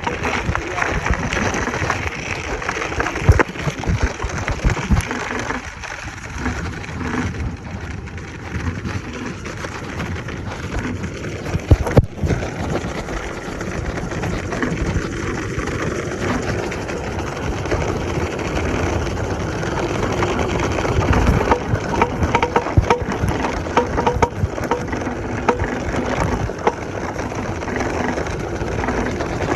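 Off-road electric scooter on the move: steady rushing noise of wind and tyres over rough ground, with rattles and sharp knocks from bumps, the loudest about 3 and 12 seconds in.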